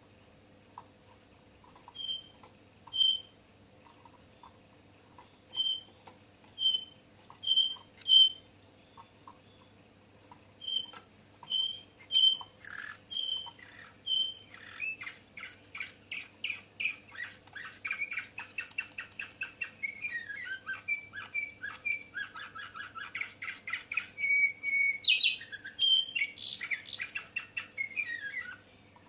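A green canary singing: single short chirps about a second apart at first, then from about halfway a fast, continuous song of rapid trills and rolling phrases with falling glides.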